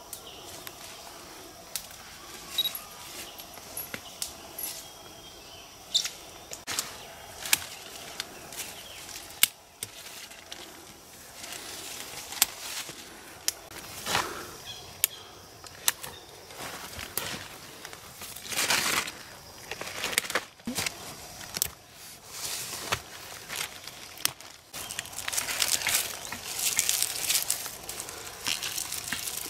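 Leaves and twigs rustling and crackling as people push through dense forest undergrowth and pick fiddlehead ferns, with many sharp snaps of breaking stems and twigs. The rustling is densest over the last few seconds, while a bunch of picked fronds is handled.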